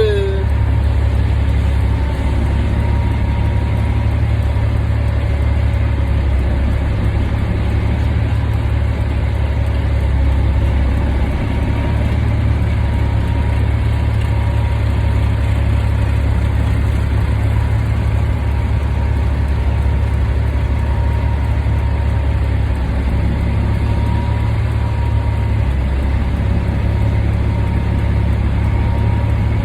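Diesel engine of a 2002 Peterbilt 387 semi truck running steadily at low revs, its sound sitting mostly low and even with no sudden changes.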